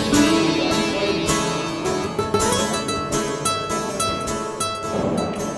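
Background music led by plucked strings playing quick notes, growing quieter near the end.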